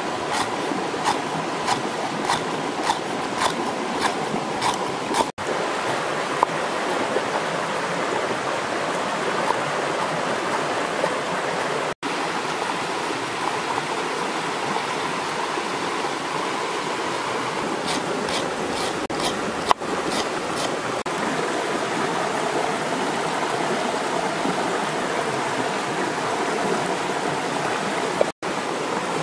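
A rocky river flowing steadily over stones. In the first five seconds, a cleaver chops lemongrass on a wooden chopping block in sharp knocks about twice a second, and a shorter run of chops comes about two-thirds of the way through.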